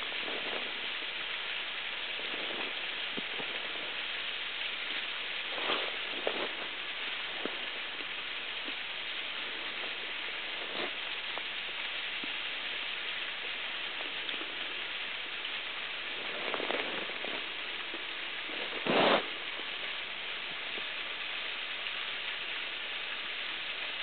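Steady hiss of water running beneath the ice of a mostly frozen waterfall, with a few short knocks, the loudest about nineteen seconds in.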